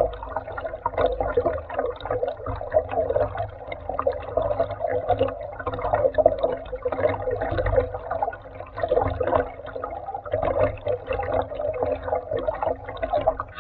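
Mountain stream water rushing and gurgling, muffled and dull as heard by an underwater camera.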